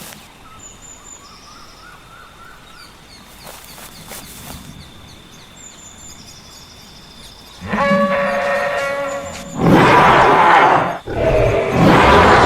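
Added animal sound effects: faint high bird chirps over a quiet background, then about eight seconds in a loud, drawn-out pitched call followed by two loud, rough roars.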